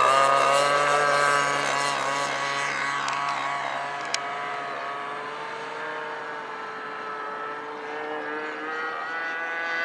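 RC aerobatic plane's engine and propeller running at high power through take-off and climb-out, a steady pitched drone that fades as the plane flies away and grows louder again near the end.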